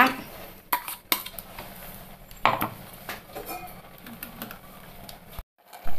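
Steel ladle knocking and scraping against the inside of a pressure cooker while thick ground-coconut paste is stirred into cooked green gram. It gives a few separate clinks, the loudest about a second in and again around two and a half seconds.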